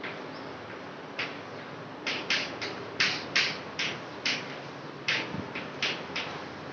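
Chalk writing on a chalkboard: an uneven run of about a dozen short, sharp scratches and taps as letters are written, starting about a second in.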